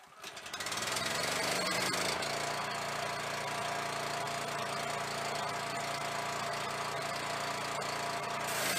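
Honda 13 hp single-cylinder engine on a direct-drive pressure washer catching and running up to a steady, loud run, settling about two seconds in. Near the end the trigger is pulled and the hiss of the high-pressure water spray joins the engine.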